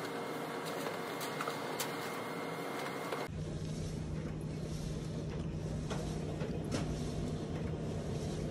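Large-format inkjet printer running while it prints a poster. For the first three seconds or so its sound is sped up; then it changes abruptly to a steady low hum with a few faint ticks.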